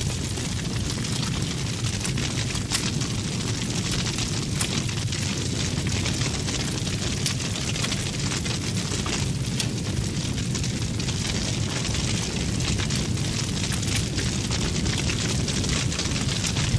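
A large effigy burning as a tall bonfire: a steady roar of flames with sharp crackles and pops every second or two.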